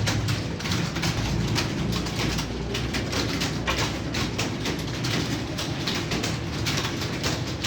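Fast typing on a computer keyboard: a dense, irregular run of key clicks over a low steady hum.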